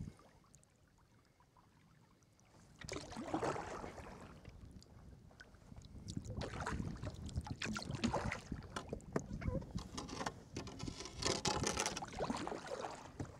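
Kayak paddle strokes and water splashing and rushing along the hull as the kayak runs through a fast tidal current. It is quiet at first, then the water noise starts about three seconds in and carries on unevenly, with many small splashes.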